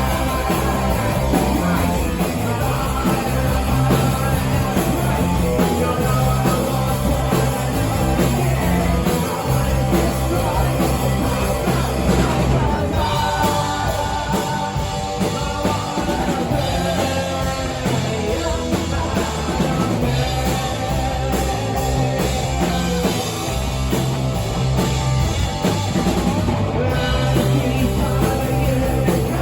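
Punk rock song: a full band playing with a singer.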